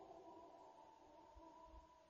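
The fading tail of a long, drawn-out howl of unidentified origin, steady in pitch, dying away into silence.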